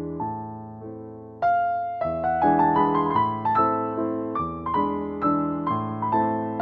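Slow, soft piano melody: single notes and chords struck one after another and left to ring and fade, with a louder chord about a second and a half in.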